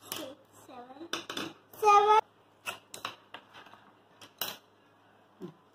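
Pencils clicking and tapping as they are set down and moved on a wooden tabletop, a string of short sharp knocks. A child's voice sounds briefly near the start and loudest about two seconds in.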